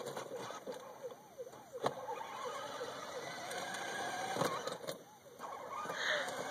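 Power Wheels Dodge Charger ride-on toy car's electric drive motors and gearbox whirring steadily as it drives, with a few sharp clicks. For the first two seconds a fast warbling electronic tone repeats about four times a second.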